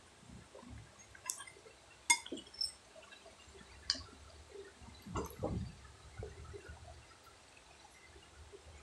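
A metal spoon clinks sharply against a plate about four times while scooping rice. About five seconds in come soft, wet mouth and chewing sounds of a child eating a spoonful of rice.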